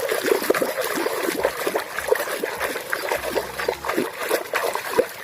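Water splashing and sloshing in quick, irregular strokes as an eight-wheeled toy truck is swished and rubbed clean by hand.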